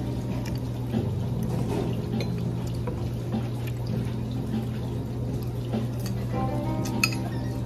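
Background music over steady room hum, with a few light clinks of cutlery and one sharper clink near the end.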